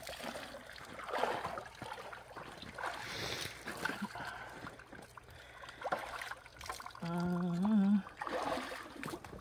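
Water sloshing and splashing in an outdoor cold-water tank as a man moves in it, in irregular bursts. About seven seconds in, a man's voice gives one drawn-out call lasting about a second, the loudest sound here.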